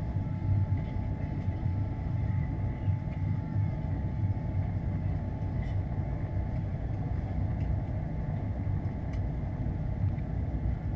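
Steady cabin noise inside an Airbus A330 in flight: a low, even rumble of engines and airflow, with a faint steady tone above it.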